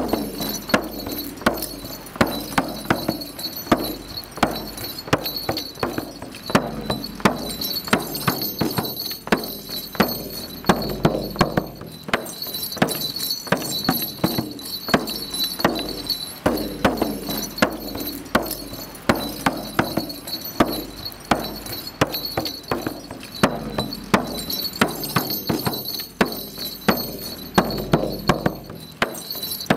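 Large hand-held frame drum struck with a beater in a steady beat, about two strokes a second, each stroke ringing low.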